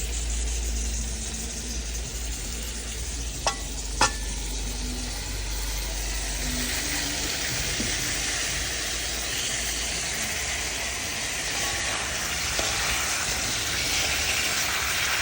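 Curry chicken frying in oil in a pot, a steady sizzle that grows stronger in the second half, with stirring. Two sharp clicks about three and a half and four seconds in.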